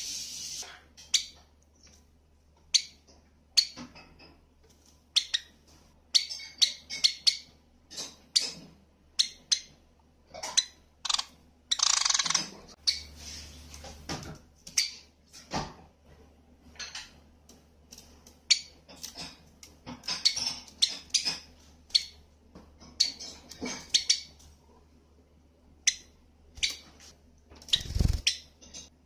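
Java sparrow giving short, sharp chirping calls, one at a time and in quick runs of several, with a longer, harsher call about twelve seconds in. A low thump comes near the end.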